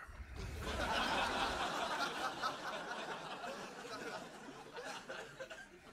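Club audience laughing at a punchline, swelling quickly in the first second and then slowly dying away.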